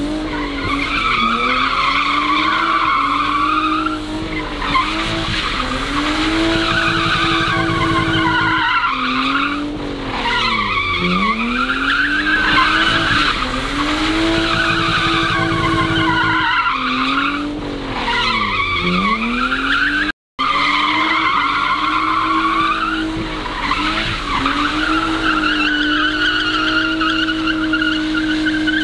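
BMW E36 coupe doing donuts on wet asphalt, its engine revving up and falling back every two to three seconds while the rear tyres squeal and skid. The sound cuts out for a split second about two-thirds of the way through.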